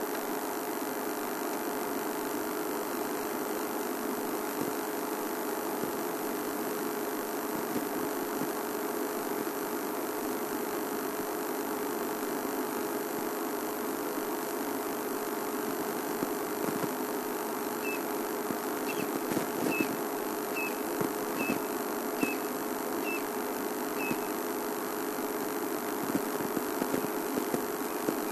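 A steady low mechanical hum, with a bird's short high chirp repeated about eight times at even spacing about two-thirds of the way through.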